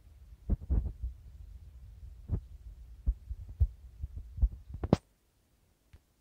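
Handling noise on a handheld camera's microphone: a low rumble with several irregular dull thumps, ending in a sharper click about five seconds in, where it cuts off abruptly.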